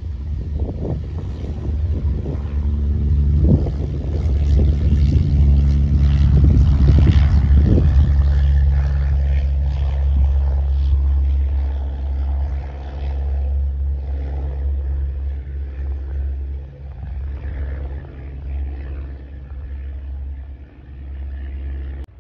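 Small single-engine propeller training plane at full takeoff power: a droning engine hum that grows loudest a few seconds in as the plane lifts off and climbs out, then fades as it flies away.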